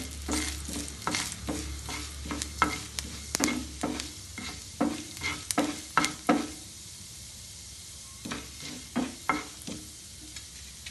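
Wooden spatula stirring urad dal in shallow hot oil in a non-stick pan, with short scraping strokes over the sizzle of the frying dal. The stirring pauses for about two seconds past the middle, leaving only the sizzle, then resumes briefly.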